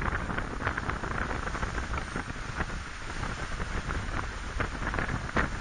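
Wind buffeting the microphone: a steady low rush with scattered rustling crackles.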